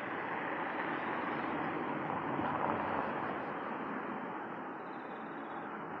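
Outdoor town ambience: a steady rush of noise that swells a little about halfway through, then eases off.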